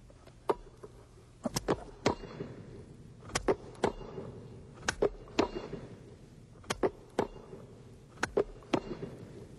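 Sharp hand claps and slaps of hands on a basketball, about fifteen in all, spaced irregularly and sometimes two or three in quick succession. They come from the clap-and-catch drill repeated: the ball is released from behind the knees, the hands clap in front and snatch at it before it reaches the floor.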